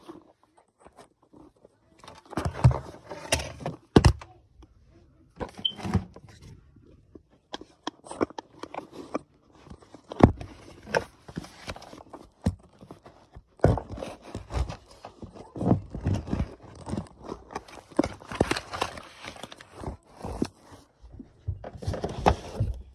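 Handling noise from a phone camera being set up: irregular thumps, scrapes and rustles close to the microphone, starting about two seconds in.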